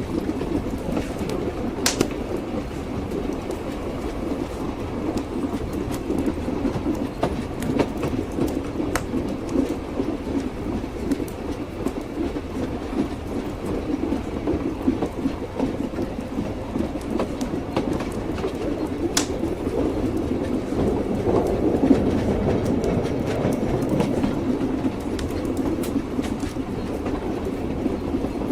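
Train wheels clacking on the rails: a steady rumble of a moving train with a few sharp clicks.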